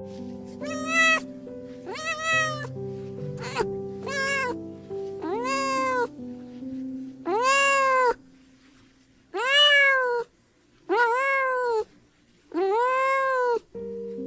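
A cat meowing repeatedly, about nine drawn-out meows, each rising and then falling in pitch. Light background music plays under the first half, then drops out.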